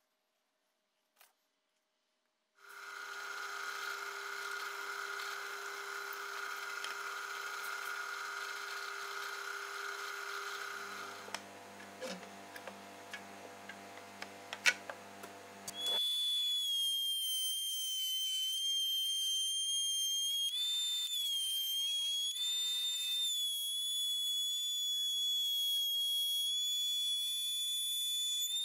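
Workshop power tools running in turn. After a brief near silence, a steady machine hum starts about two and a half seconds in. About eleven seconds in it gives way to a quieter stretch with a few clicks and knocks. About sixteen seconds in a louder, steady high-pitched motor whine begins, wavering slightly in pitch.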